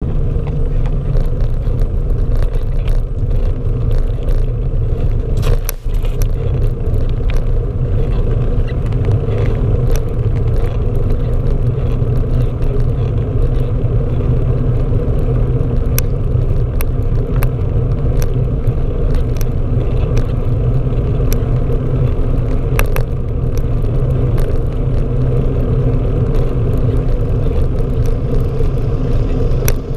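Steady loud rumble of road vibration carried through a GoPro rigidly mounted on a moving bike's seat, with frequent sharp knocks and rattles as the mount jolts over the asphalt.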